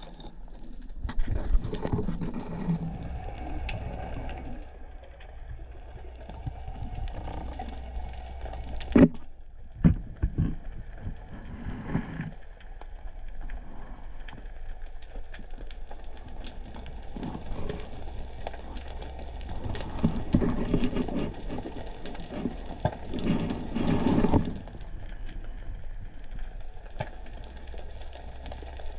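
Muffled underwater noise as a diver swims: a low steady rumble of moving water with scattered clicks and knocks, two sharper knocks about nine and ten seconds in, and a louder swish near the end.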